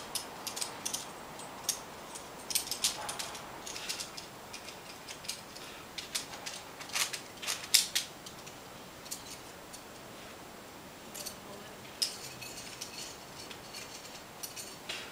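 Metal trad climbing gear on the climber's rack clinking and jangling in short irregular bursts as the climber shifts and works in the crack, loudest a little past the middle.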